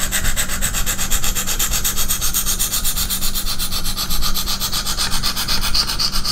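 Coarse 140-grit diamond stone of a KME guided knife sharpener rasping in rapid back-and-forth strokes along a steel knife blade's edge. These are the coarse first-grit strokes that set the bevel and raise a burr along the edge.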